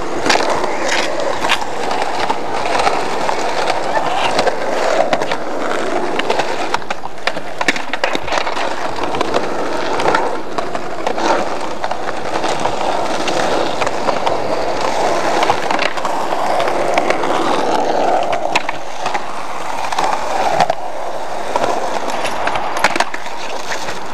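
Skateboard wheels rolling on rough concrete, with scattered sharp clacks of boards hitting the ground.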